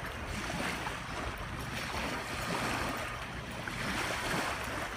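Small lake waves washing onto a sandy shore in a steady, swelling and ebbing wash, with wind rumbling on the microphone.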